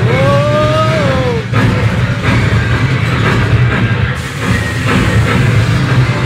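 Loud music from a motion-simulator cinema's ride-film soundtrack over a steady low rumble, with a smooth pitched glide that rises and falls over the first second and a half.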